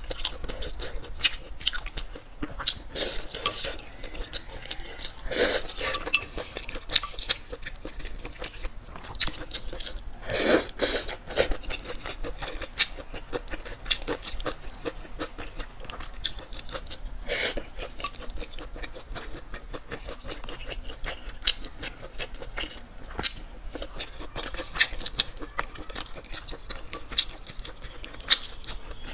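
Close-miked eating sounds: chewing and mouth clicks mixed with utensils clinking against dishes. There are a few louder bursts about five, ten and seventeen seconds in.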